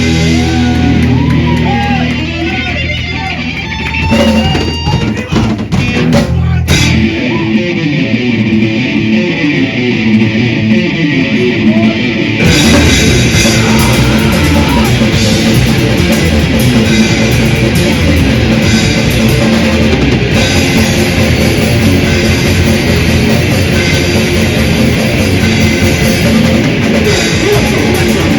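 Death/thrash metal band playing live: distorted electric guitars, bass and drums. A held, ringing chord gives way to a guitar riff played without cymbals, and the full band with drums and cymbals comes back in about twelve seconds in.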